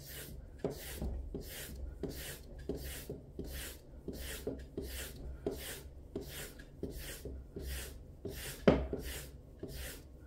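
Victorinox kitchen knife blade being stropped with quick, even alternating strokes, about two a second, each a short rubbing hiss, as the final honing stage after the finishing stone. One sharper, louder knock a little past the middle.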